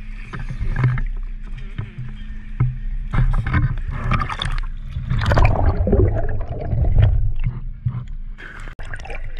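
Sea water sloshing and gurgling around a camera held at the water's surface, loudest about five to seven seconds in, over a steady low rumble.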